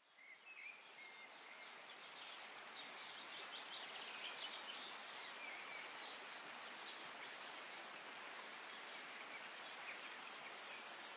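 Faint outdoor ambience: a steady hiss with birds chirping through roughly the first half, the chirps dying away after about six seconds. It fades in over the first second.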